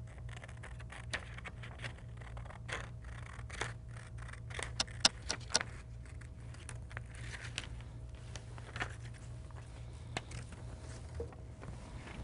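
Scissors snipping through a sheet of paper: a string of irregular cuts with paper rustling, the sharpest run of snips about five seconds in.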